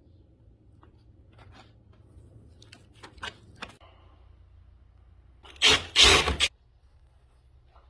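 Scattered light knocks and scrapes, then a loud rasping noise a little after halfway, two quick strokes lasting about a second in all, as of a tool drawn across wood.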